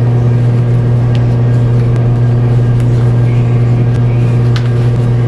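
A loud, steady low hum with a few fainter overtones, unchanging throughout, with a few faint clicks now and then.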